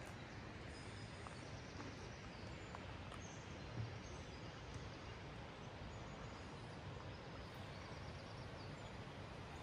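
Steady outdoor background noise with faint, brief bird chirps now and then and a single soft thump about four seconds in.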